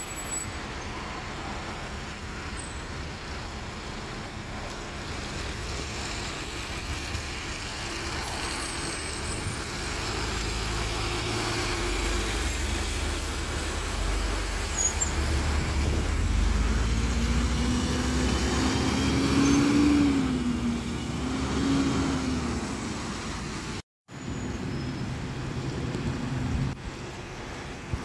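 Double-decker bus engine pulling away and driving close past, its low rumble building over several seconds, with a whine that rises and then falls. The sound cuts out abruptly near the end, then another bus is heard running more quietly.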